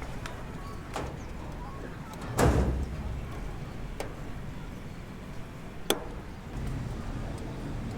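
Scattered knocks of building work on a construction site, with one louder, heavier thud about two and a half seconds in and a sharp knock near six seconds.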